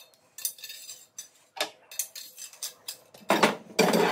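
Metal rotisserie spit parts clinking and knocking against each other and on a stone countertop as they are fitted together and set down, with a few louder clanks near the end.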